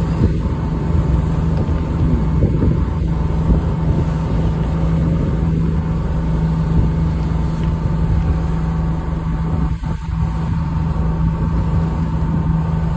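Tour boat's engine running steadily under way: a continuous low hum and rumble.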